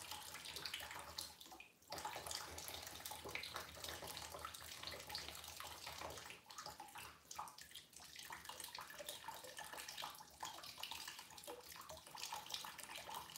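Water running and splashing through an aquarium siphon hose, a crackly trickle that briefly drops out a few times.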